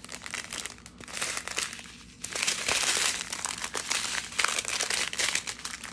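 Small plastic bags of diamond painting drills crinkling and rustling as they are handled and sorted, louder from about two seconds in.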